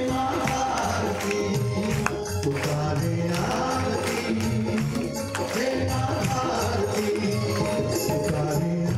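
A live band plays Indian devotional-style music through loudspeakers, with a keyboard melody over a steady beat and jingling hand percussion.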